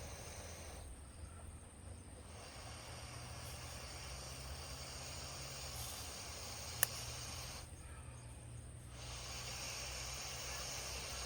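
Wood bonfire: a steady soft hiss with one sharp crackle of burning wood about seven seconds in.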